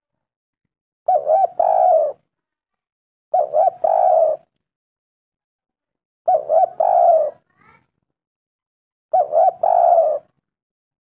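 Spotted dove (tekukur) cooing: four calls, each two short quick notes followed by a longer coo, repeated every two to three seconds.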